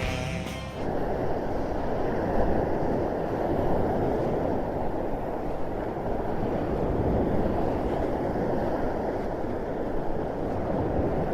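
Steady low rushing noise, like a sound-effect ambience, starting as the music stops about a second in and holding even to the end.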